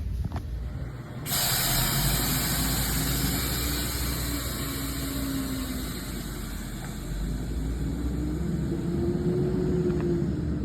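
An engine running, with a loud steady hiss that starts abruptly about a second in; the engine's pitch rises in the later part.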